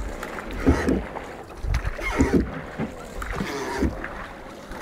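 Wooden rowboat being rowed by hand, the oars working in their rope lashings with a stroke about every second and a half.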